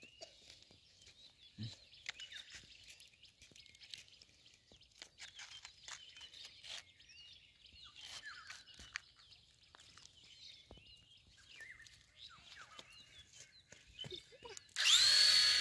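Faint birds chirping, then near the end the small electric motor of a homemade matchbox helicopter switches on with a loud high whine that rises quickly and then holds a steady pitch.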